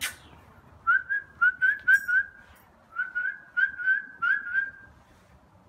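A person whistling to call a dog: quick, short, high notes that each flick upward, in two runs of about six or seven notes with a short pause between.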